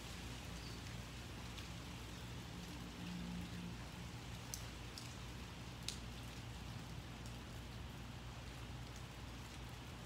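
Light rain falling, a steady hiss with a few sharp drip ticks about halfway through, over a low steady hum.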